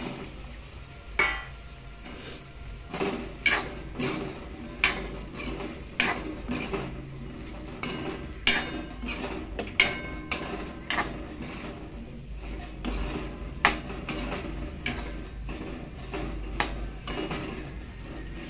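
Metal spoon stirring cauliflower florets and green peas into a tomato masala in a metal kadhai, scraping and clinking against the pan irregularly, about once a second.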